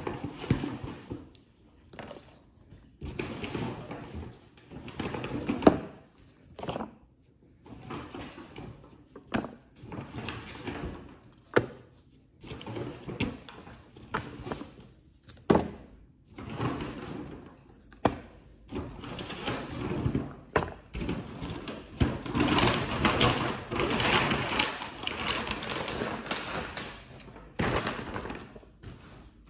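Groceries being unpacked and set down on a kitchen counter: plastic tubs and yogurt cups knocking as they are stacked, with the rustle and handling of packaging between the knocks.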